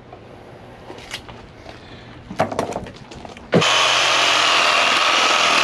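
A few clicks and knocks of handling, then an electric power saw switches on abruptly just past halfway and runs steadily at full speed, sawing through the pig's bone.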